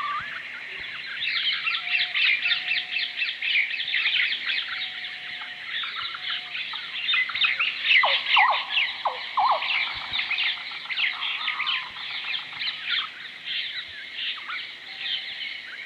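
A dense chorus of many small birds chirping rapidly and continuously, a nature-ambience sound effect. A few lower, falling calls stand out about halfway through.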